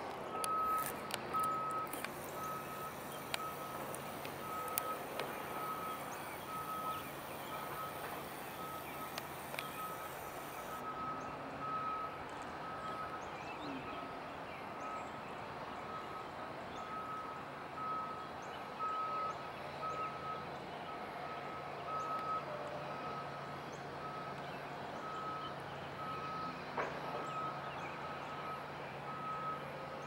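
Reversing alarm of a construction vehicle beeping steadily, a single high tone a little more than once a second, over a low steady hum.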